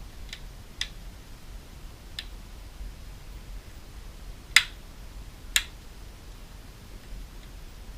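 A few small, sharp clicks and taps from handling the opened Galaxy Note 8.0 tablet and its small parts, with two louder clicks about a second apart past the middle.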